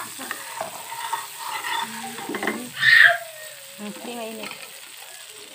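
Food frying in bubbling oil in a nonstick pan, sizzling steadily while a spoon stirs and knocks against the pan. A brief louder burst comes about three seconds in.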